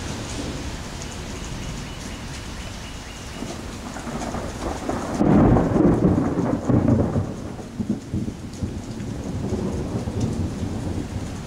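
A long roll of thunder over steady rain: the rumble builds about four seconds in, is loudest in the middle, then rolls away over the next few seconds.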